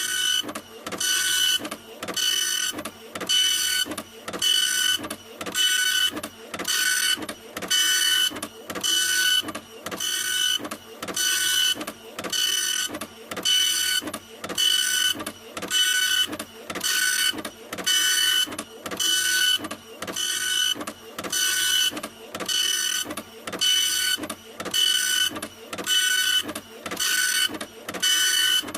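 Printer running, its motor whirring in even passes about once a second, each pass with a steady high-pitched whine and a brief dip between passes.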